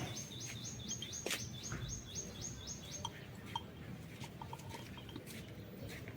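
A small bird singing a fast, even trill of short down-slurred high notes, about six a second, which stops about three seconds in. Scattered light clicks and taps sound throughout.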